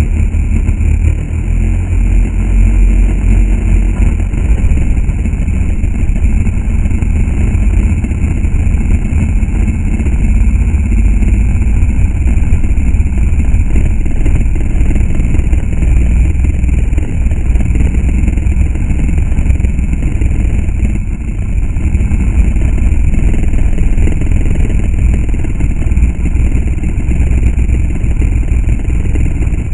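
Quadcopter's electric motors and propellers whirring steadily in flight, close to the onboard camera, with wind rumbling heavily on the microphone. The level dips briefly a little after two-thirds of the way through.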